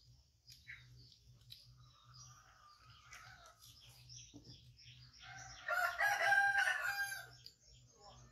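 A rooster crowing once, a steady call of about a second and a half in the second half; fainter bird calls come before it.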